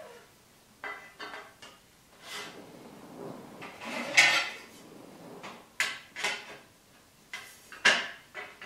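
PVC tubes being pushed and slid into the holes of a gray model side plate: irregular short knocks and scrapes of plastic parts being handled, the loudest a longer scrape about four seconds in and a sharp knock near the end.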